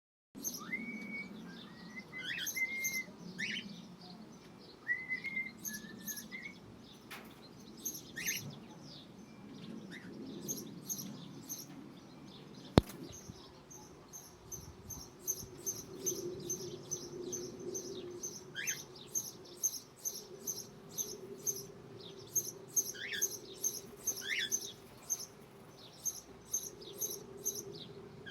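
Cockatiels chirping and calling in an aviary. Short whistles in the first few seconds, then a quick, steady run of high chirps at about three a second, with one sharp click about halfway through.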